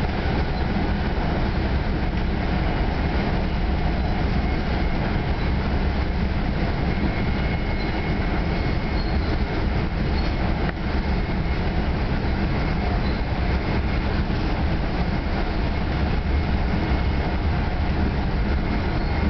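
Steady rumble and rail noise heard from inside a New Jersey Transit Comet VI multilevel passenger coach rolling along at speed.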